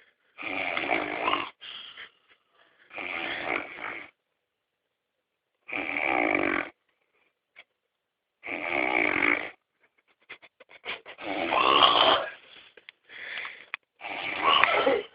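Heavy snoring: rasping snores about a second long, coming roughly every two to three seconds with silence between, and a crackling rattle leading into a longer snore about two-thirds of the way through.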